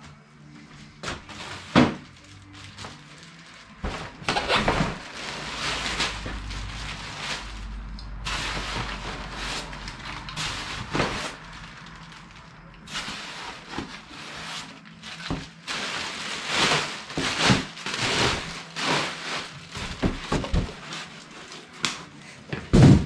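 Packaging being handled as a masonry saw is taken out of its box: irregular rustling and scraping stretches broken by knocks and bumps, with a sharp loud knock near the end.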